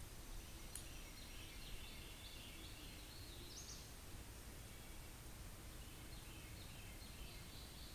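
Quiet outdoor background with a faint bird singing in short chirping phrases over a low, steady rumble.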